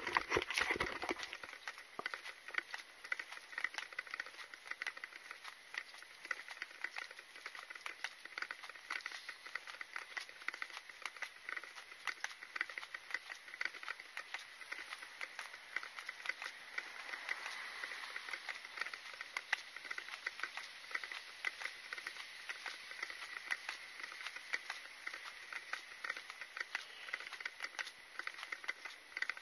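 Steady rustling and dense fine clicking from a person walking with a body-worn camera, with a brief louder rustle at the very start.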